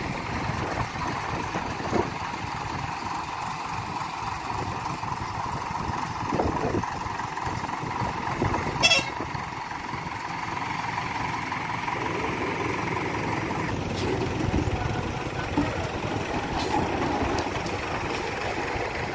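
Heavy diesel engines running steadily: a laden twelve-wheel lorry working round a hairpin bend, and a backhoe loader, with a brief horn toot about nine seconds in.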